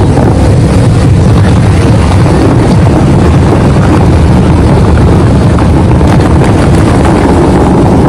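Steady, loud rushing of the Dubai Fountain's water jets and falling spray, heavy and low, mixed with wind buffeting the microphone.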